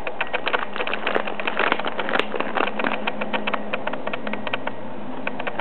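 A cat chewing and biting a plastic candy wrapper, the plastic crinkling in a rapid, irregular crackle of many small clicks.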